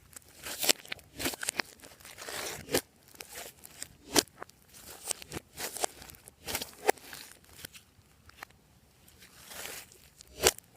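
Hands squishing and stretching glossy slime: irregular sharp pops and clicks, with softer crackling stretches in between.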